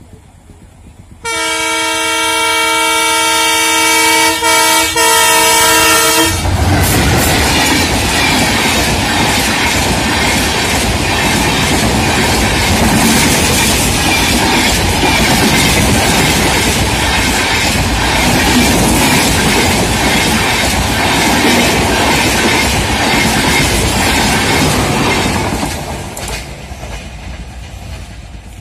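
Alco diesel locomotive sounding its horn, one long blast of several notes at once lasting about five seconds, then the locomotive and its coaches passing at speed, a loud steady rush with dense clatter from the wheels over rail joints, fading away near the end.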